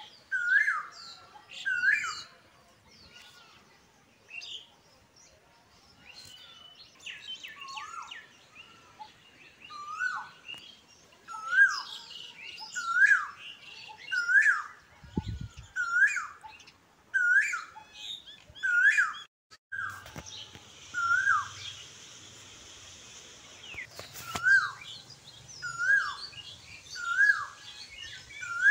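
Birds chirping: one bird repeats a sharp rising-and-falling chirp about once a second, with other quicker chirps around it. A short low thump comes about halfway, and a steady hiss with a low hum joins about two-thirds of the way in.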